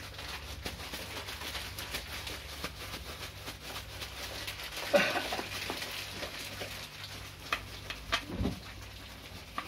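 Plastic bag rustling and crinkling as a bag-covered hand presses and smooths a soft coconut-mawa sweet mixture into a steel plate, over a steady low hum. A short pitched sound comes about five seconds in.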